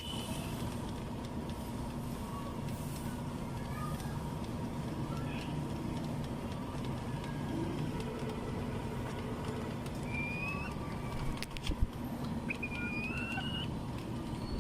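A steady low mechanical hum, with a few short, high calls from serama bantam chickens in the last third and a couple of sharp knocks just before them.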